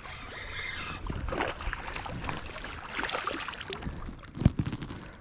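Water splashing and sloshing as a hooked bass is landed, with knocks and handling noise. There is one sharp thump about four and a half seconds in.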